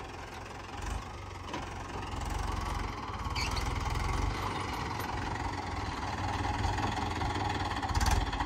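Mahindra 575 DI tractor's four-cylinder diesel engine running steadily, getting louder a couple of seconds in.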